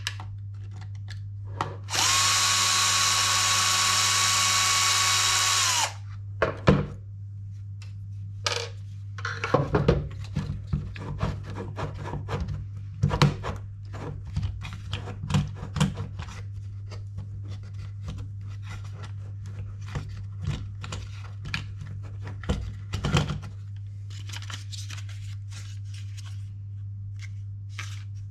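Cordless electric screwdriver running steadily for about four seconds, backing out a screw during disassembly of an RC buggy. It is followed by a string of light clicks and knocks from small parts and screws being handled.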